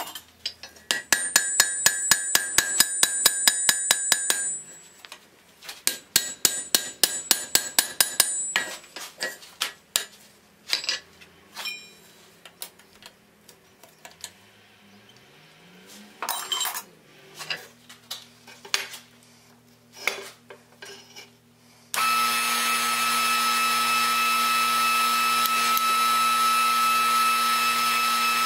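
Hand hammer striking hot iron on a steel anvil: two runs of rapid ringing blows, then scattered single strikes. About 22 seconds in, a steady machine hum with a whine starts abruptly as the forging press runs.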